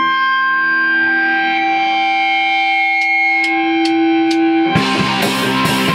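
Distorted electric guitar holding long sustained notes during a band rehearsal, then four sharp clicks about half a second apart, and near the end the full rock band with drums comes in loud.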